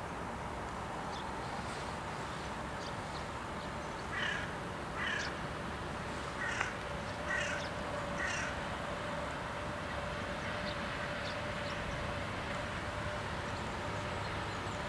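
A crow cawing five times, about a second apart, over the low steady rumble of a VR Sr1 electric locomotive slowly bringing a tank-car freight train into the yard. A faint steady hum comes in about halfway through.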